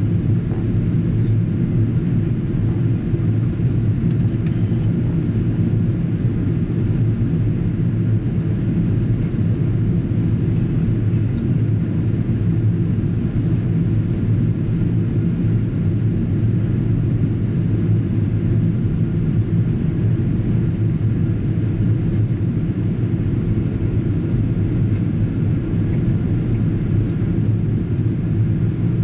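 Steady low rumble of engine and airflow noise inside the cabin of a Boeing 777-200ER in flight on approach.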